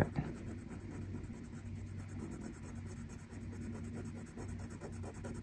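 Black felt-tip marker rubbing on paper as a letter is filled in, faint, over a low steady hum.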